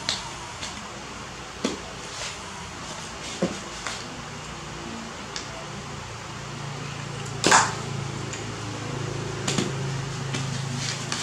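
Scattered light clicks and taps of handling, with one louder knock about seven and a half seconds in, over a low steady hum that sets in about halfway.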